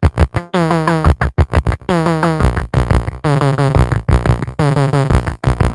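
Electronic synthesizer music: pitched synth tones chopped into short stuttering notes with brief gaps, some notes sliding in pitch.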